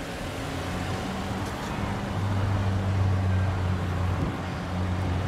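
Car engine idling: a steady low hum that grows louder for a couple of seconds in the middle, over a faint outdoor hiss.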